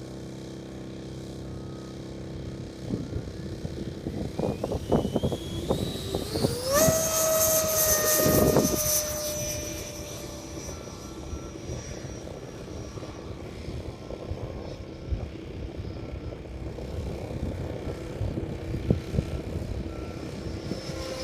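Model airplane motor throttling up in a rising whine over a few seconds, then holding a steady high pitch that slowly sags and fades as the plane moves away. Gusty wind buffets the microphone.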